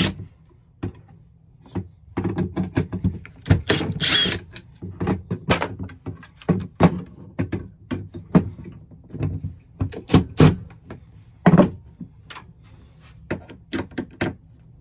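Irregular clicks and knocks of a driver bit and metal parts as a tight, stuck screw on a paper cutter's blade is worked at, first with a cordless drill and then with a hand screwdriver.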